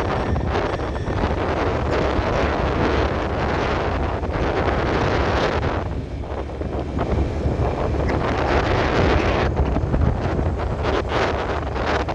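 Wind buffeting the microphone of a phone on a moving motor scooter, over a steady rumble of road and traffic noise.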